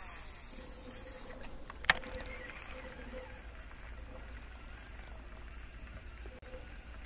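Baitcasting reel retrieving a topwater lure just after a cast, quiet, with one sharp click about two seconds in, over a faint steady hum.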